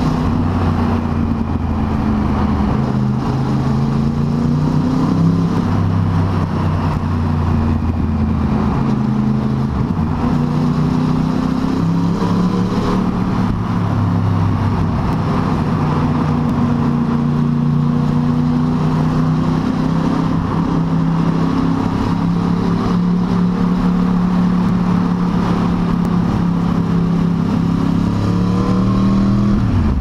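Yamaha R1 inline-four engine running through Yoshimura R77 exhaust cans with the baffles out, ridden inside a road tunnel. The engine note shifts up and down in steps with throttle, then climbs as the bike accelerates near the end.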